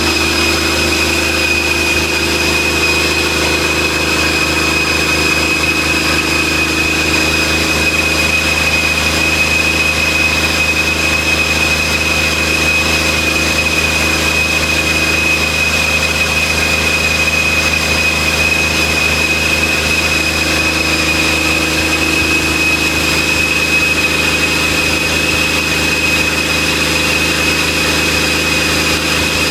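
Cummins QSM11 inline-six turbodiesel running steadily, held at about 1,600 rpm, with a steady high whine over the engine note.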